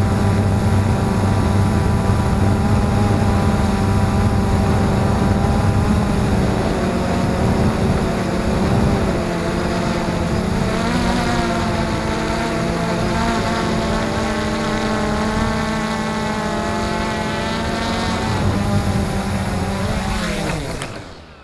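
XK Detect X380 quadcopter's motors and propellers whirring loudly, heard from the camera on board, the pitch shifting up and down as the throttle changes. Near the end the motors spool down and stop as the quad sets down in the grass.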